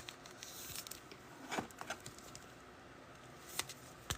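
Faint rustling and a few soft clicks of trading cards and their packaging being handled.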